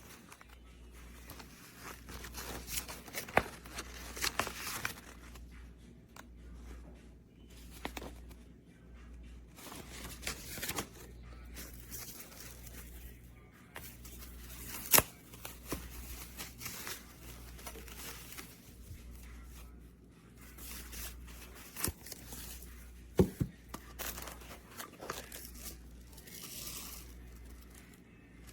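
Handling noises: rustling and crinkling with scattered sharp clicks and knocks, over a low steady hum.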